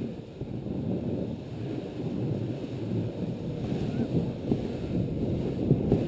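Plastic sled sliding fast over packed snow: a steady rushing scrape of the hull on the snow, mixed with wind buffeting the microphone.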